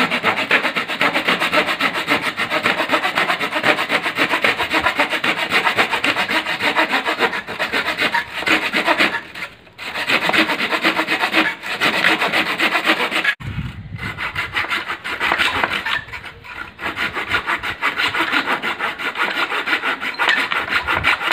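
A folding hand pruning saw cutting through a dry, weathered wooden branch: quick, steady back-and-forth rasping strokes of the teeth in the wood, with a short pause near the middle and a single knock about two-thirds through.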